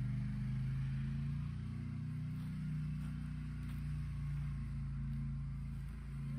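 Polaris Sportsman Touring 1000 XP ATV's twin-cylinder engine running as the quad rides at low speed, its pitch rising and falling a little with the throttle.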